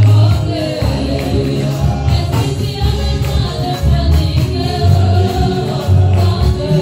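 Live gospel worship music: voices singing over a keyboard, with a heavy repeating bass line and a steady percussive beat.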